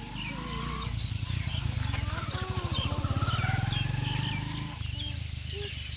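Small birds chirping repeatedly, over a louder low rumble that swells about a second in and drops away near five seconds.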